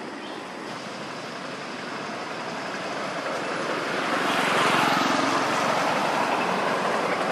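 Steady road traffic noise, with no distinct calls or clicks, growing louder about four seconds in.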